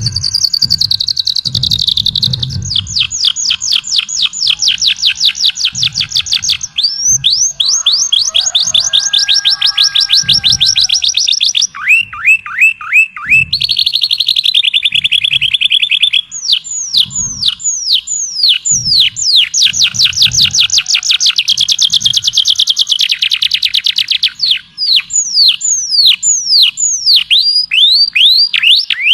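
A songbird singing a long, loud string of fast trills, each made of rapidly repeated notes, broken up by slower runs of sweeping notes that fall in pitch. Soft low thumps sound underneath.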